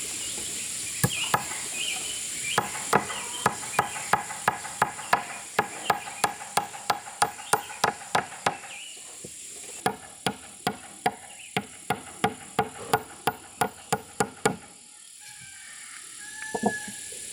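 Hammer driving nails into wood: two runs of quick, evenly spaced blows, about three a second, with a short pause between them. Crickets or other insects chirr steadily throughout.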